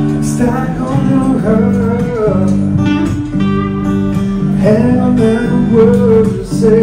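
Live acoustic guitar strummed in chords, with a man singing into a microphone over it.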